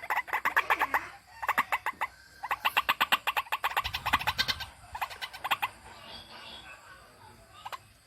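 White-breasted waterhen calling in rapid trains of repeated harsh notes, about ten a second. There are four bursts of a second or so each, and the calls grow fainter over the last couple of seconds.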